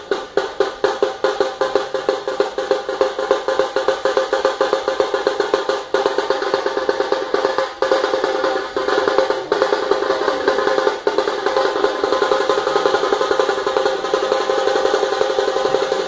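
Dhol tasha troupe drumming: many dhols struck together with tasha drums rattling over them. Evenly spaced strokes at about four a second grow denser into a near-continuous roll after about six seconds.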